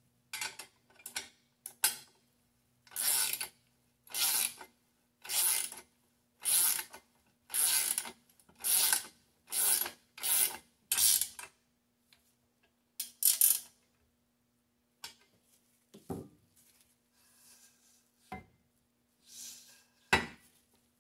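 Socket ratchet tightening a bolt on a steel belt grinder frame, its pawl clicking on each back-swing: about a dozen strokes at roughly one a second, stopping about two-thirds of the way through. Near the end, a few sharp metal clanks as a steel plate is set down on the steel table.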